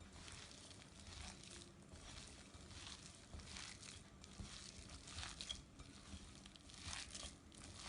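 Hands mixing and kneading minced chicken with spices and oil in a mixing bowl: faint, irregular soft strokes.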